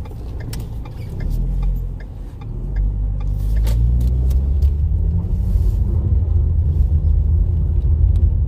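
Car engine and road rumble heard from inside the cabin while driving, growing louder as the car picks up speed, the engine note rising. A few light clicks sound in the first few seconds.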